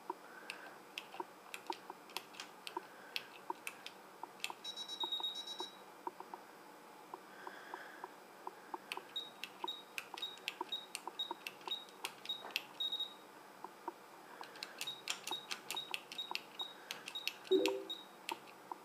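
Push-button keypad keys clicking under a finger as a code is entered on a PIC16F913 code-lock circuit. Short high beeps from the circuit answer runs of key presses, about two a second, and one longer beep comes about five seconds in. A brief low buzzing thump near the end is the loudest sound, and a faint regular ticking runs underneath.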